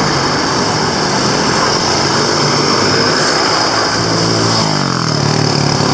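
Road traffic passing close by: vehicle engines running over steady road noise, with one engine's pitch falling near the end.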